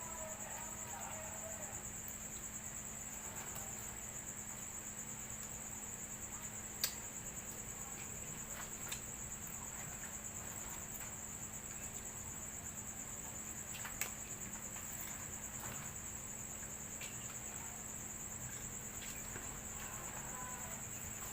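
Crickets chirring steadily and high-pitched, over a low steady hum, with a few sharp clicks: the loudest about seven seconds in and another about fourteen seconds in.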